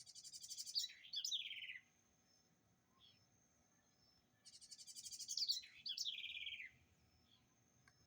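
House wren (garrincha) singing twice, about four seconds apart. Each song lasts about two seconds: a fast, high trill that runs into a cascade of falling notes.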